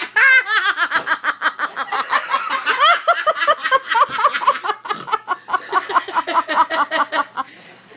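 Several women laughing hard together in fast, high-pitched bursts, dying down just before the end.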